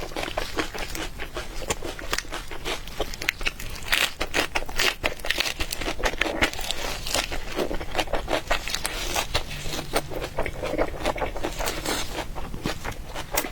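Close-miked mouth sounds of a person eating: a dense, irregular stream of wet clicks and crackles as food is chewed.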